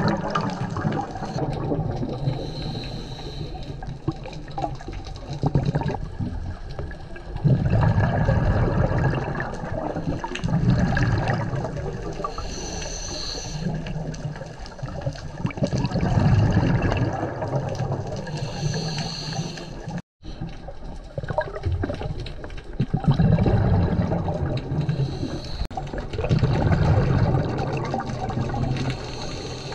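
A scuba diver breathing through a regulator underwater: short hissing inhalations alternate with loud, gurgling rushes of exhaled bubbles every few seconds. The sound cuts out briefly about two thirds of the way through.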